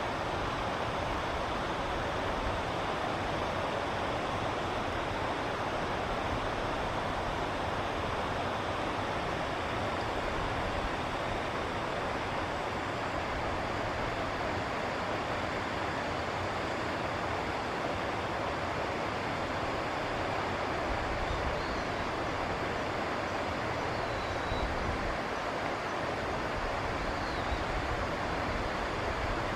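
Steady rushing of flowing river water, with a few faint high bird chirps in the second half.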